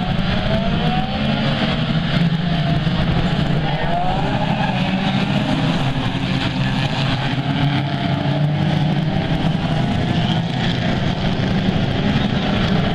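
Several 1600cc banger racing cars' engines running together around the track in a steady loud din, with revs rising and falling as the cars accelerate.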